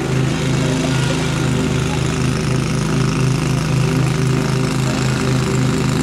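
An engine running steadily at idle: a low hum with a fast, regular pulse.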